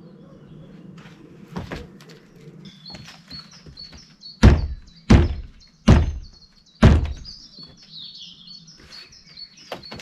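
Four loud, hollow thunks in quick succession, less than a second apart, as parts of a plastic garden shed roof are knocked into place. Birds chirp in the background.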